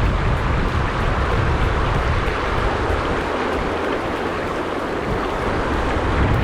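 River current rushing steadily, an even wash of water noise with a low, uneven rumble beneath it.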